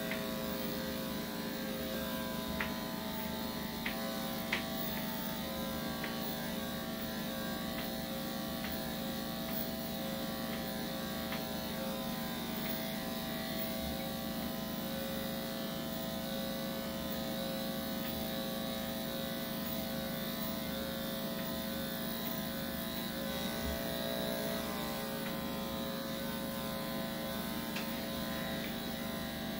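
Corded electric dog clippers with a 3/4-inch blade running continuously as they shave through a Yorkshire Terrier's coat, a steady hum. A few light clicks sound about two and a half to four and a half seconds in.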